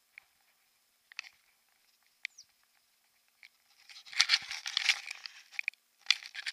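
Handling noise on a handheld camera: a few scattered clicks, then from about four seconds in dense, irregular crackling and rubbing as the camera is gripped and turned round in the hand.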